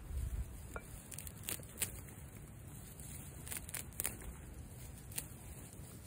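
Dry standing grass being harvested by hand for fire tinder: a few sharp, crisp snips scattered among light rustling of the stems.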